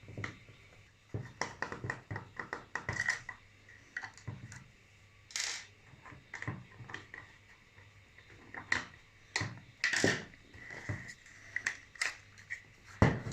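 Irregular clicks, taps and knocks of plastic and small metal parts as a cordless drill's casing is worked open by hand and with tools, with a few louder knocks spread through. A faint steady high hum runs underneath.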